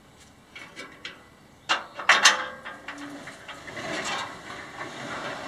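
Metal clanking and rattling from a homemade steel lumber-mill frame as its raised part is lowered by hand: a few light clicks, a cluster of loud clanks about two seconds in, then a longer rattle.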